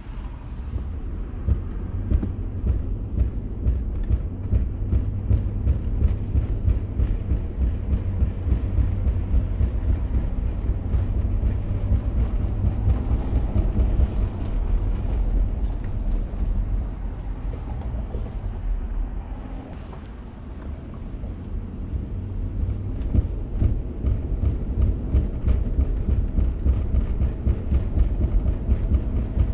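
Lexus LX470's drivetrain thumping in a rapid, rhythmic beat over the low rumble of the moving vehicle, easing briefly about two-thirds of the way through before picking up again. The owner suspects damaged CV joints.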